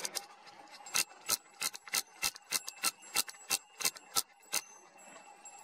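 Detent clicks of the Nikon P1000 camera's control dial being turned step by step to change the exposure: about fifteen sharp clicks at roughly four a second, starting about a second in and stopping near the end.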